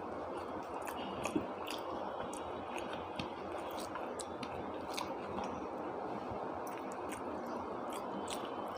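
Someone chewing a mouthful of chicken curry and khichuri, with wet, squishy mouth sounds and scattered short clicks, over a steady background hiss.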